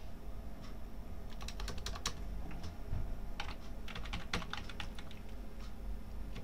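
Typing on a computer keyboard: two short runs of keystrokes as a search term is entered, the first about a second in and the second around the middle, over a steady low hum.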